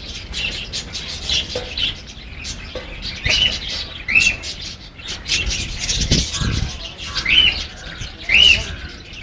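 Baby parakeet chirping: a run of short, high chirps with a few arched, rising-then-falling calls about a second apart. There are a few low thuds partway through.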